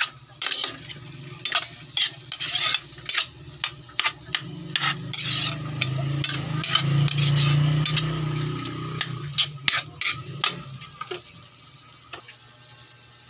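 A metal spatula scrapes and clacks against a wok while ground meat is stir-fried, with the meat sizzling underneath. A low hum swells and fades in the middle, and the stirring stops near the end.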